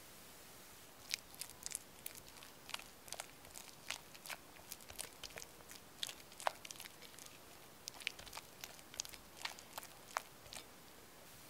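Silicone spatula mixing softened butter and cream cheese in a glass bowl, starting about a second in: a run of short, irregular smacks and clicks as the spatula works the soft mixture and scrapes the glass.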